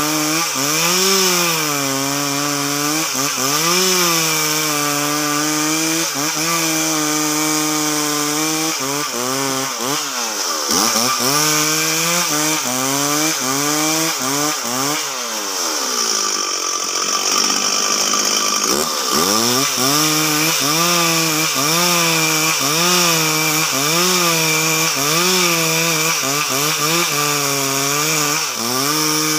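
Stihl MS 360 two-stroke chainsaw ripping lengthwise along a meranti log under load. The engine note dips and recovers about once a second as the bar is worked through the cut, and drops lower and rougher for a few seconds about halfway through before picking up again.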